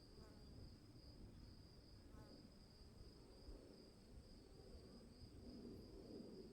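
Faint night-forest ambience: crickets trilling steadily in a high, evenly pulsing chorus over a soft low background rumble, with two brief faint chirps in the first few seconds.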